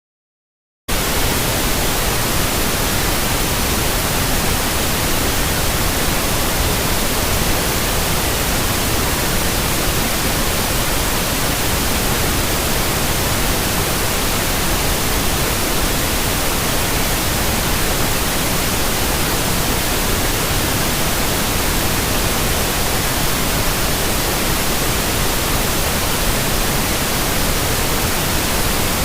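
Steady white noise, an even hiss that starts abruptly about a second in and runs unchanged, played as a sleep aid for a baby.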